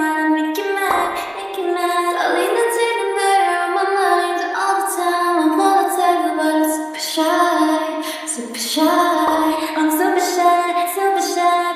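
A high female voice singing a melody, with little or no accompaniment.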